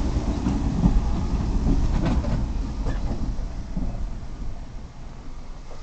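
JR West 105 series electric train rolling slowly along the platform as it arrives, a low rumble with a few clacks from the wheels, fading as it slows to a stop.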